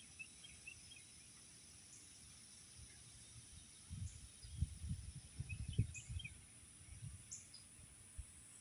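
Faint lakeside ambience with a few short, high bird chirps near the start and again about six to seven seconds in, over a steady high hiss. Low rumbling bumps on the microphone between about four and seven seconds in.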